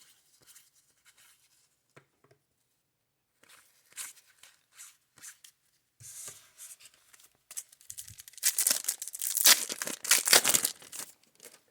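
A 1991 Score baseball card pack wrapper being torn open: faint handling clicks and crinkles, then a run of loud ripping in the second half.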